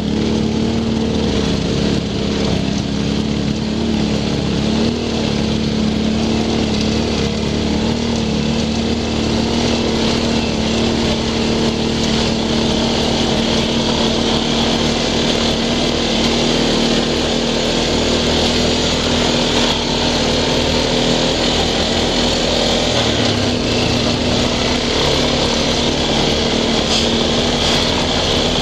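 Single-cylinder four-stroke ATV engine running steadily under way on a rough dirt trail, its note holding fairly even, with rushing wind and trail noise over it.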